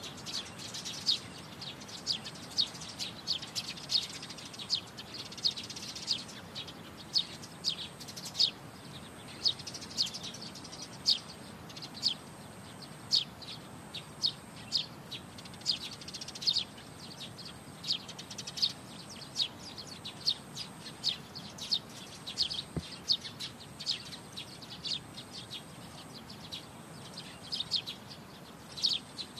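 Small birds chirping and singing: many short, sharp, high notes in quick, uneven succession. Behind them is a faint high steady tone that comes and goes.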